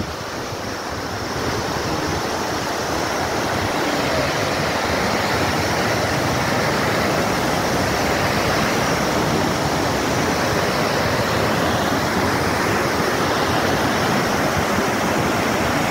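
Steady rush of a fast river's white-water rapids running over boulders, a little louder after the first second or two.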